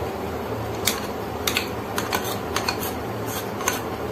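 A spoon scraping and knocking against a small ceramic bowl as minced chicken is scraped out into a steel mixing bowl: a string of short clicks and scrapes, about eight in four seconds, over a steady low hum.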